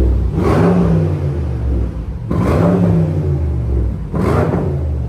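2021 BMW M550i's twin-turbo V8 revved through its muffler-deleted exhaust with resonators and quad tips, three short blips about two seconds apart over a steady idle.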